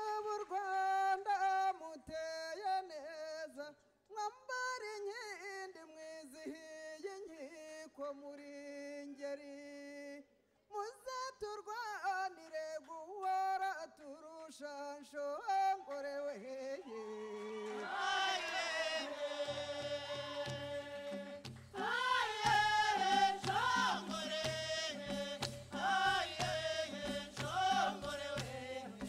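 Rwandan traditional song: one high voice sings a winding solo line, with short breaks between phrases. About eighteen seconds in, a choir joins in fuller voice, and a low repeating beat starts under it.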